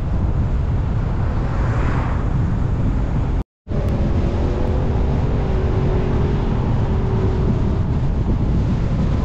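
Steady low rumble of a car driving, road and wind noise, with a sudden dropout to silence for a moment about three and a half seconds in.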